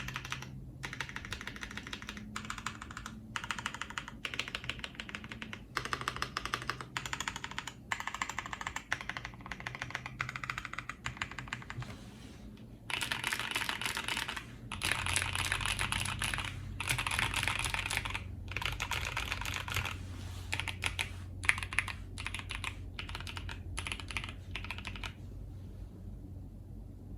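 Typing on a mechanical keyboard with lubed Boba U4T tactile switches, a brass plate and PBT keycaps: runs of rapid keystrokes broken by short pauses. The typing gets busier about halfway through and stops a couple of seconds before the end.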